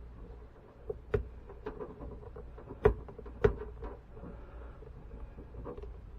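Rubber intake duct and its clamp being handled and worked into place, giving a handful of sharp clicks and knocks; the two loudest come about three seconds in, half a second apart.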